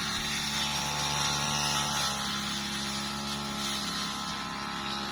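Petrol brush cutter engines running steadily at an even pitch while clearing brush.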